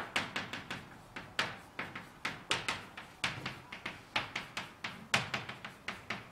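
Chalk clicking and tapping against a blackboard as Japanese characters are written stroke by stroke: an irregular run of short, sharp clicks, several each second.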